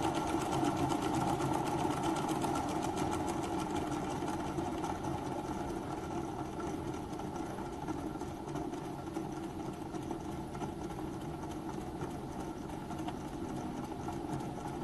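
Small single-cylinder oscillating (wobbler) live-steam model engine running fast and smooth, with a rapid, even ticking beat that slowly grows quieter.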